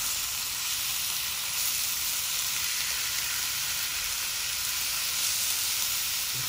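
Marinated lamb strips sizzling in a hot ribbed grill pan, a steady hiss as the meat fries and is spread around the pan with a knife.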